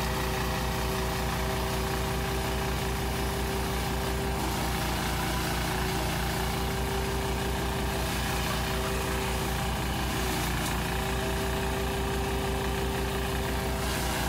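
Small stationary engine running steadily, belt-driving a forage chopper while dry corn stalks are fed into it and chopped for silage.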